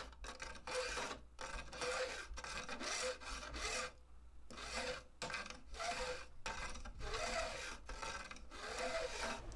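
A file scraping back and forth along the protruding fret ends of a Fender maple guitar neck, about three strokes a second with a brief pause about four seconds in: the fret ends are being roughed in before bevelling.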